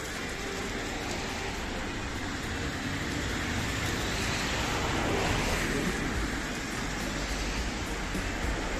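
Street traffic noise: a car passing, its tyre and engine noise swelling to a peak about halfway through and fading again.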